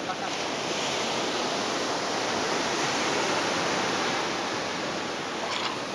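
Ocean surf breaking and washing up the beach: a steady rushing that swells over the first few seconds and then eases.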